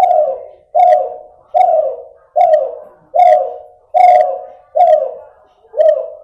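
A derkuku (spotted dove) hybrid, an F2 cross of a Kelantan derkuku with a female cuhu, cooing in a steady series of about eight short, low coos, one every 0.8 seconds, each starting sharply and fading away. The breeder describes the bird's voice as still nasal, with an inconsistent number of closing notes.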